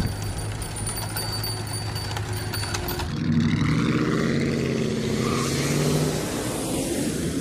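Sound design for an animated title logo: a steady low hum with thin high ringing tones, then about three seconds in the high tones stop and a louder, deeper swell takes over.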